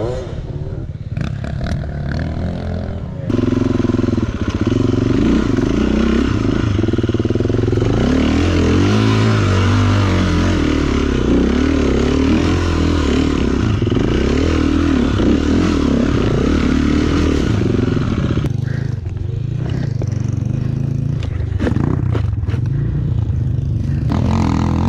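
Enduro dirt bike engine revving hard and unevenly, its pitch rising and falling as it works over rough ground. It gets louder about three seconds in and eases back about eighteen seconds in, with a few knocks in the quieter part.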